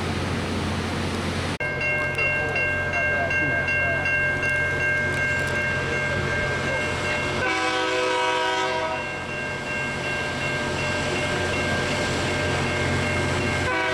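Loram rail grinder working along the track: steady grinding noise with a high whine of several steady tones, starting abruptly about a second and a half in. Around eight seconds in a brief chord of evenly spaced tones sounds over it.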